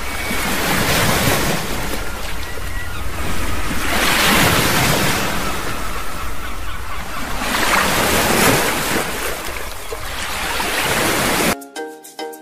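Waves washing onto a shore, swelling and ebbing about every three to four seconds over a low rumble. About a second before the end the wash cuts off suddenly and plucked-string music begins.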